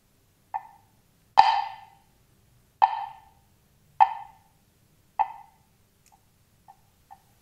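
A wooden woodblock is struck with mallets: five single strokes about a second apart, each ringing briefly at the same pitch, the second the loudest. Near the end come three faint taps, closer and closer together.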